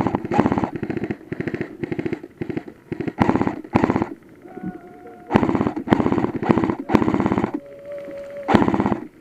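Airsoft rifle firing in short full-automatic bursts, a rapid even clatter of shots broken by brief pauses, with longer bursts near the end.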